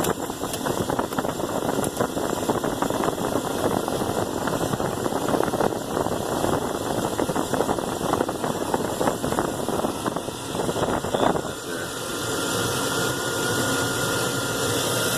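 A 2000 GMC Sierra's 4.8-litre V8 idling after a cold start, heard close up in the engine bay. About twelve seconds in the sound grows steadier, with a faint high whine.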